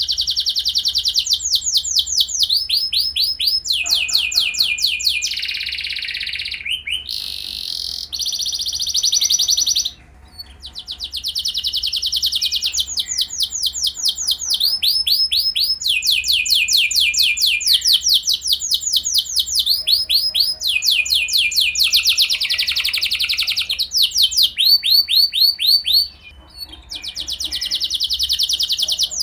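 Domestic canary singing a long, continuous song of rapid trills, each phrase a fast run of repeated notes that changes to a new phrase every second or two, with short breaks about ten seconds in and near the end.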